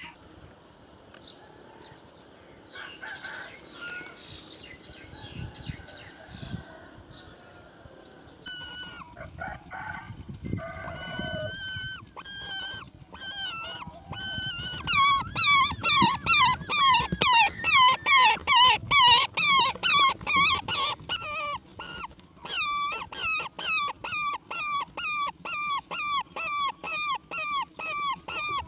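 Roller nestling calling, scattered calls at first, then from about halfway a long run of loud, evenly repeated begging calls, about two to three a second.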